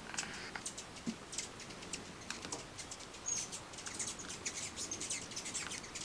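A puppy gnawing on a pine cone: quick, irregular crunching clicks as its teeth work the cone's scales.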